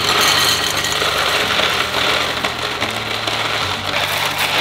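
Dry rotini pasta poured from a cardboard box into a glass canister: a steady stream of hard pieces clattering against the glass and against each other.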